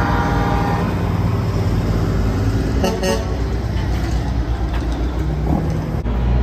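Heavy trucks' diesel engines rumbling as they roll slowly past, with a truck horn blast that ends under a second in and a second short horn toot about three seconds in.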